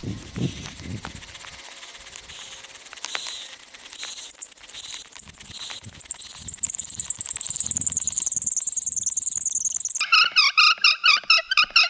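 Bow drill friction fire: the spindle squeals as it turns in the balsam fir fireboard under back-and-forth bow strokes, a high squeak that pulses with each stroke and grows steadier. About ten seconds in, the strokes quicken and the squeak drops lower, chirping several times a second as the dust heats toward a coal.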